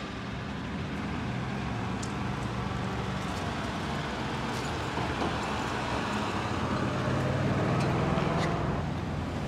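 Slow street traffic: a steady low engine hum from passing small vehicles, louder for a couple of seconds near the end, with a few faint clicks.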